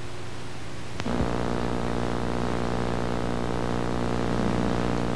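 A steady low hiss and hum, broken about a second in by a sharp click, after which a louder steady hum with many overtones and a fast low pulsing runs on.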